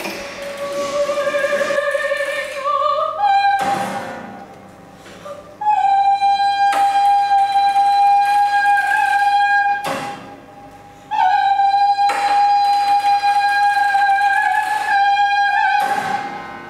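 A woman's voice singing long, high held notes, each sustained for several seconds, rising in steps over the first few seconds and then holding one pitch, with a few sharp knocks between the notes. It is a recorded voice performance played back over loudspeakers into the lecture room.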